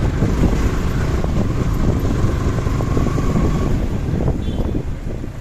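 Motorcycle on the move: steady engine and road rumble with wind buffeting the microphone.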